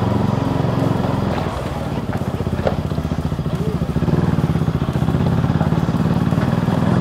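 KTM RC 200's single-cylinder engine running on the move, its note dropping off about two seconds in and picking up again about four seconds in.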